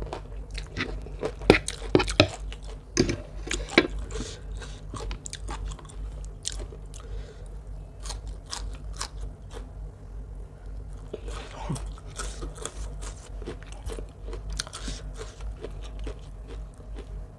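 A person chewing and crunching mouthfuls of spicy rice-noodle salad with raw vegetables, a run of sharp crunches. The loudest bites come about one and a half to four seconds in, with softer chewing after.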